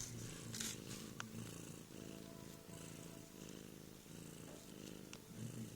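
Cat purring steadily and softly, with a few faint clicks.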